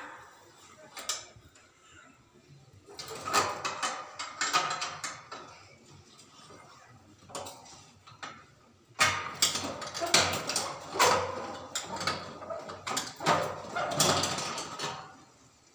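Metal clattering and scraping as an old satellite dish and its steel mounting bracket are wrenched loose with a 10 mm spanner. The rattling comes in two long spells of quick knocks, one about three seconds in and a longer one from about nine seconds in.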